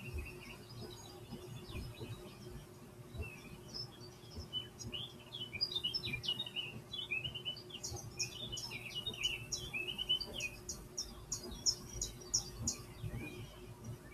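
Recorded birdsong playing from a computer's speakers: several small birds chirping and twittering, sparse at first and busiest after a few seconds, over a steady low hum.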